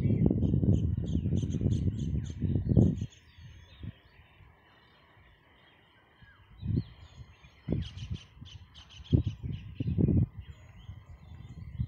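Small birds chirping in quick runs of short, high notes, twice. A loud low rumble on the microphone fills the first three seconds, and short bursts of it come back in the second half.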